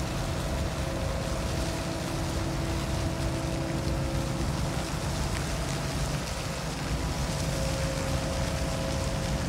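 Japan Coast Guard patrol vessel Fuso (PLH21) moving slowly past at close range while coming in to berth: a steady low machinery rumble with a few steady humming tones, over an even hiss.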